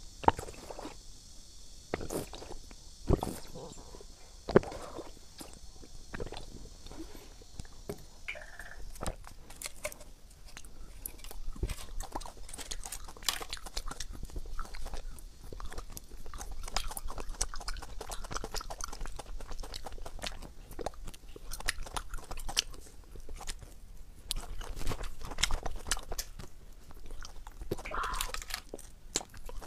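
Close-miked eating sounds: a few sharp mouth clicks and sips in the first seconds, then steady crunching, biting and chewing of candy on a stick, full of small wet clicks.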